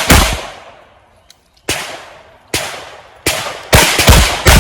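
Competition revolver shots, about seven of them, each sharp crack followed by a short fading ring. One shot comes right at the start, then a pause of about a second and a half, then a string of shots that speeds up towards the end.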